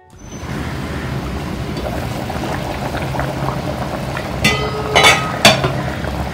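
Thick roasted-coconut fish curry boiling hard in an open pan, a steady bubbling. Three sharp metallic clinks ring out about four and a half to five and a half seconds in.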